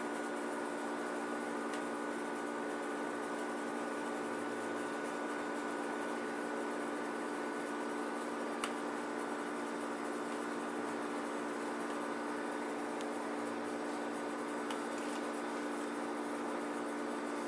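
Samsung AW05B5171TWA window-type air conditioner running with a steady mechanical hum: several steady tones over an even hiss, with a faint tick about halfway through. This is the machine noise that the owner says stays loud whatever the fan or cooling setting.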